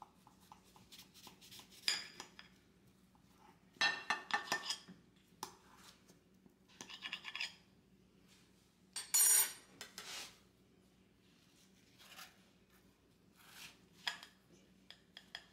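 A knife cutting through a baked flaky pie crust in a glass pie dish, in a string of short crunching scrapes and clinks, the loudest about nine seconds in. A metal pie server clinks against the dish.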